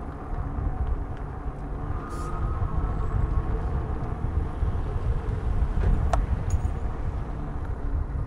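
Wind rumble on the microphone and tyre noise on asphalt from a bicycle being ridden, with a sharp click about six seconds in.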